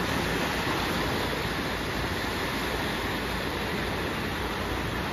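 Small Adriatic waves breaking and washing onto the shore, an unbroken rush of surf.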